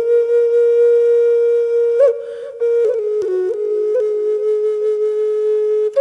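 Solo flute playing a slow melody in long held notes. The tone breaks off briefly about two seconds in, then comes back on slightly lower notes.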